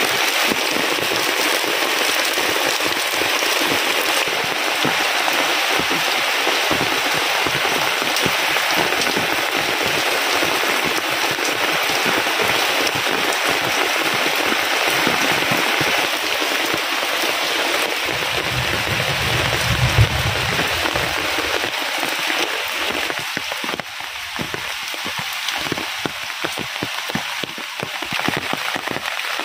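Heavy rain falling steadily on foliage and a thatched roof, easing a little near the end. About two-thirds of the way through there is a brief low rumble.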